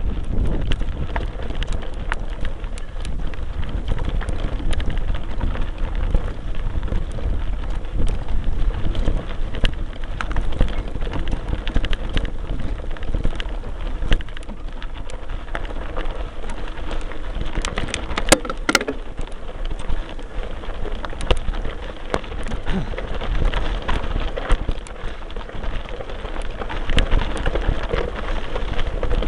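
Mountain bike rolling over a loose gravel dirt track: a constant crunching rattle from the tyres, with many small knocks, and wind rumbling on the microphone.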